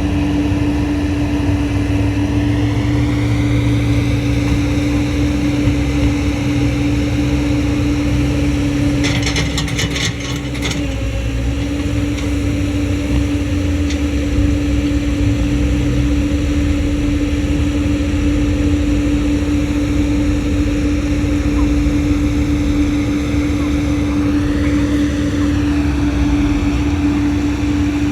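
Excavator's diesel engine and hydraulics running steadily under load, a constant drone with a deep rumble, its pitch bending briefly near the start and again near the end. A quick run of sharp rattling clicks about ten seconds in.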